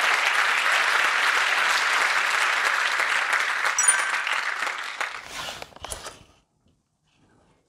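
Audience applauding steadily, then fading out between about five and six seconds in. A brief high ping sounds about four seconds in.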